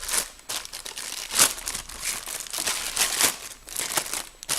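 Plastic packaging crinkling and rustling as it is handled, in irregular crackles with a louder one about a second and a half in.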